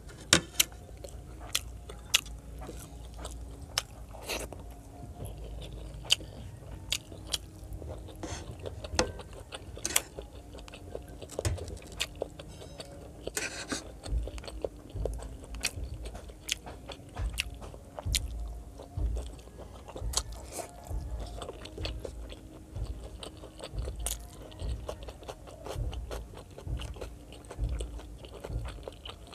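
A person chewing and biting pieces of pork adobo, with frequent sharp crunches and wet clicks from the mouth over soft, steady chewing.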